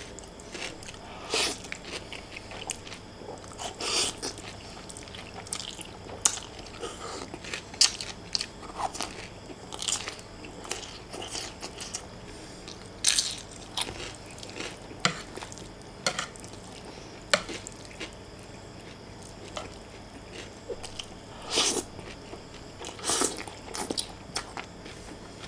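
Close-up eating sounds: a person chewing fried instant noodles, with crunchy bites of raw cucumber and irregular wet smacks and clicks.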